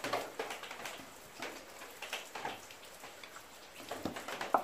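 Steady patter of water: a tap that will not shut off runs into a sink while rain falls, making a constant noise.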